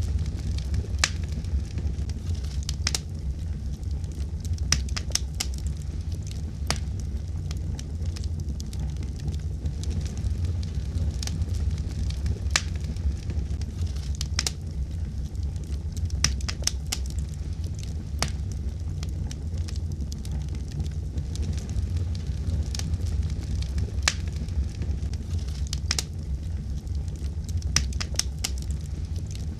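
Wood fire burning in a fireplace: a steady low rumble of the flames with irregular sharp crackles and pops, several a second at times.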